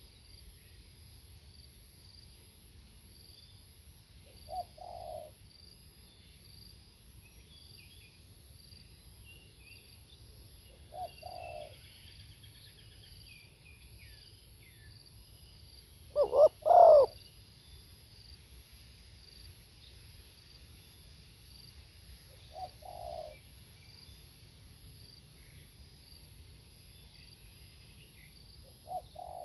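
Spotted dove cooing: short phrases of two or three coos about every six seconds, the one near the middle much louder. Faint insects trill steadily behind, with a few small chirps from other birds.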